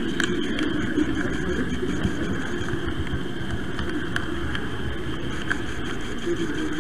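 Model train's electric motor and wheels running along the track, picked up by a camera riding on the train: a steady mechanical running sound with a few light clicks.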